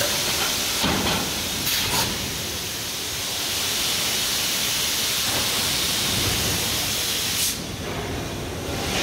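Steady loud hiss at a hot-forging press, with a few short metallic knocks in the first two seconds; the hiss cuts off suddenly near the end.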